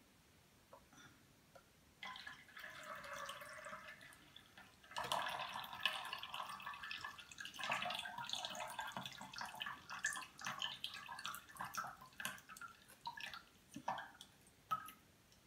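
A metal spoon stirring and pressing wet blended parsley pulp in a small metal sieve, straining the juice into a stainless steel bowl: a scratchy, squelching noise with many small clicks. It starts about two seconds in and thins to a few scattered clicks near the end.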